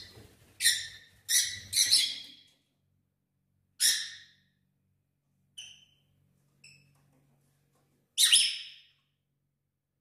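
Pet lovebirds giving loud, sharp, shrill calls: three or four in quick succession near the start, another a little before halfway, two faint short chirps, then one more loud call near the end.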